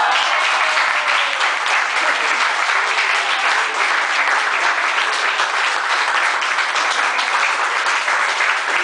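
A classroom full of students applauding, many hands clapping in a dense, steady patter.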